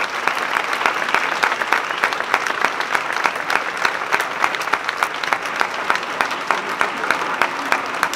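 Crowd applauding: dense, steady clapping of many hands.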